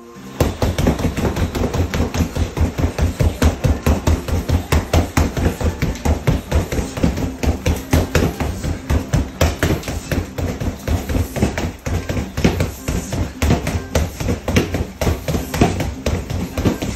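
Boxing gloves pounding a freestanding punching bag in a nonstop flurry: a rapid, steady stream of heavy thuds, several a second, kept up without a break.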